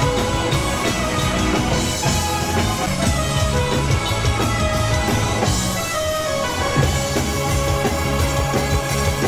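Background rock music with drums and guitar.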